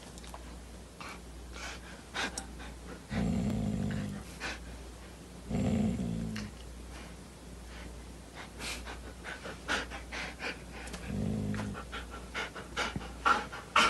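A husky panting in short quick breaths, with three brief low grumbling vocalizations about three, six and eleven seconds in.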